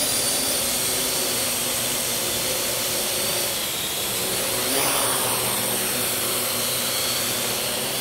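Parrot AR.Drone 2.0 quadcopter's four electric rotors whirring steadily as it hovers and descends carrying a 100-gram load, with a brief shift in pitch about five seconds in.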